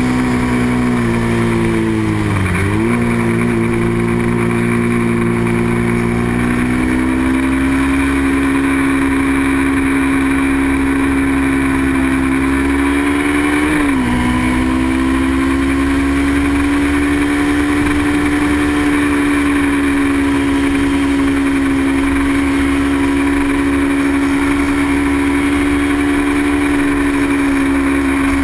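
Small-displacement race motorcycle engine running at high revs, holding a steady pitch, with two brief dips in pitch, one about two seconds in and one near the middle.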